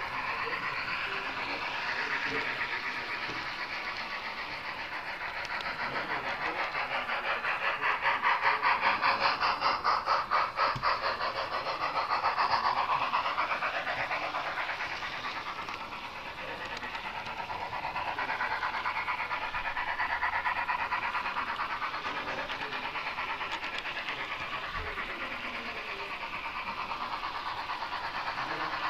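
HO-scale model train running along the layout track, a fast, even clatter that grows louder toward the middle and then eases off.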